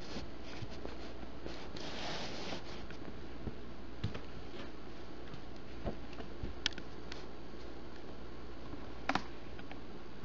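Steady low hum and hiss of a quiet small room. About two seconds in there is a brief rustle of the camera being handled and set down, and later a few faint, scattered clicks and taps.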